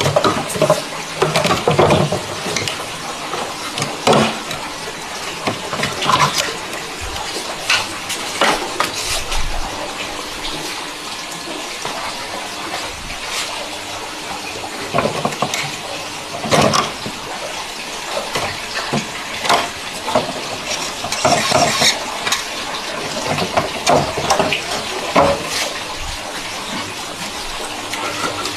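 Scattered metallic clinks and knocks of air-conditioner parts and tools being handled during disassembly, over a steady rushing hiss.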